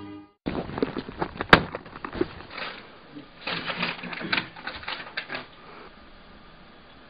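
A run of irregular sharp clicks and knocks, the sharpest about one and a half seconds in, dying away after about five and a half seconds to faint room tone.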